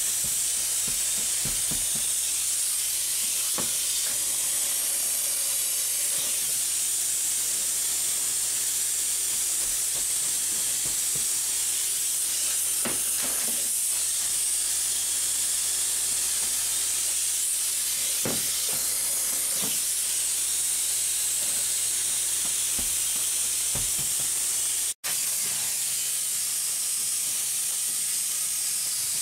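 Spray foam gun spraying polyurethane foam insulation into a wall cavity: a loud, steady high hiss. It breaks off for an instant near the end.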